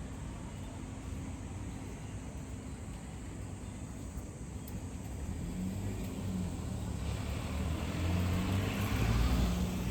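A motor vehicle approaching and passing, its low engine hum growing louder through the second half and loudest near the end, over steady outdoor background noise.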